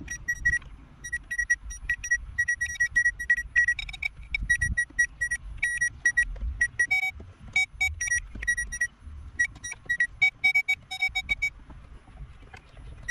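Power Probe III circuit tester beeping in quick, irregular short bursts as its tip is touched to fuse contacts to check them for power. Most beeps are at one pitch, with a run at a different pitch twice in the middle.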